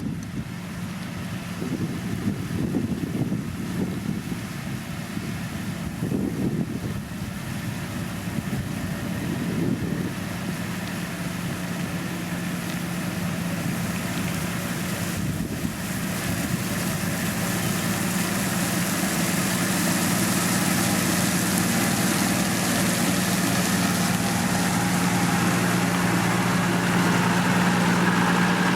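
Heavy road-construction machine's diesel engine running steadily, growing louder over the second half as it comes closer. Wind buffets the microphone in the first half.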